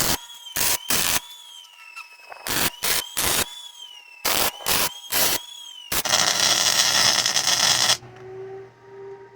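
Arc welder laying tack welds on steel: a run of short bursts, mostly in threes. About six seconds in comes one longer two-second burst, and a steady hum follows near the end.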